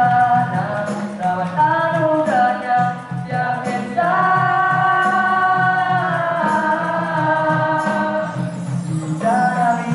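Nasyid performance: a group of teenage boys singing together in harmony into microphones, with drum accompaniment keeping a steady beat. About four seconds in they hold one long note for a couple of seconds before the melody moves on.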